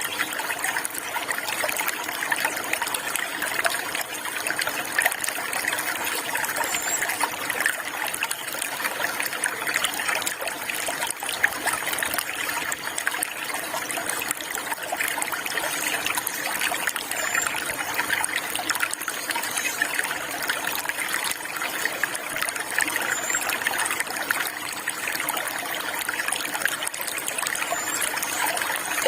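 Water trickling and flowing steadily, like a small stream. A few faint, brief high chirps of birds come through now and then.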